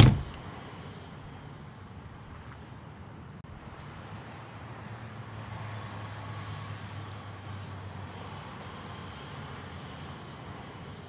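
A door slams shut with a sharp bang at the very start, followed by a steady outdoor background ambience with a low rumble.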